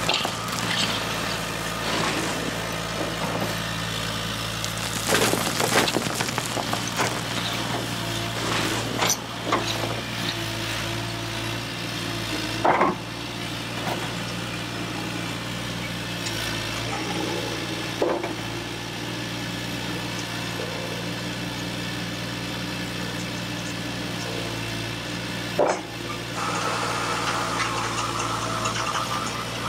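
RC scale-model Volvo EC480 hydraulic excavator running with a steady hum while it dumps scoops of dirt and gravel that crackle and rattle onto a metal hopper, in several bursts. A higher motor whine comes in near the end.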